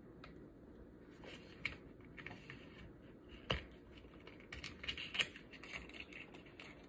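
Faint handling noise from a small free sample packet being turned over and worked open: light rustling with scattered sharp clicks and snips, the sharpest about three and a half and five seconds in.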